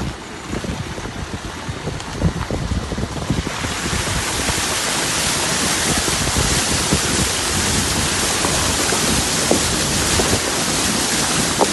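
Loud, steady rushing of water, with low wind gusts buffeting the microphone; about three and a half seconds in, a stronger even hiss sets in and holds.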